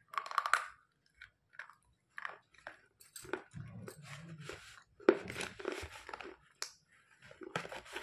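Soft white slate pencil being bitten and chewed close to the microphone: irregular crisp crunches and mouth sounds, with the sharpest crunch about five seconds in.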